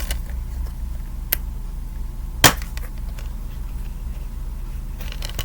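A plastic Blu-ray case being handled, with one sharp click about two and a half seconds in and a fainter tick a second or so before it. A steady low hum runs underneath.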